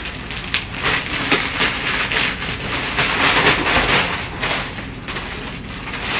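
Plastic mailer bag crinkling and rustling as it is handled and a garment is pulled out of it.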